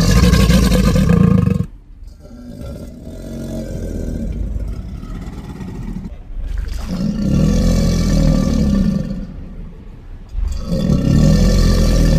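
Alligator roar sound effects: deep, rumbling bellows, loud at the start, again about seven seconds in and again about ten and a half seconds in, with a quieter growl in between.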